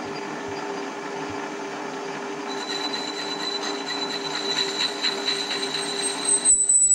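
Metal lathe running with a steady motor and gear hum. About two and a half seconds in, a high squeal and scraping join as the cutting tool takes the sharp edge off a turning aluminum wheel spacer, growing louder. The lathe's hum cuts off near the end.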